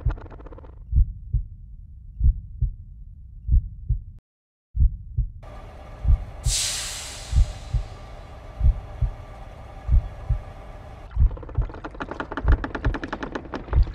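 A slow heartbeat sound effect: low double thumps about every 1.3 seconds, cutting out briefly just after four seconds in. A hiss comes in over it with a bright swell about six and a half seconds in, and from about eleven seconds a dense, fast-pulsing rattle.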